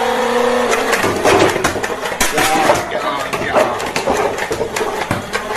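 Electronic sound effects from a battery-powered toy gun: a steady electronic tone for about the first second, then a dense, rapid clatter of clicks and buzzing.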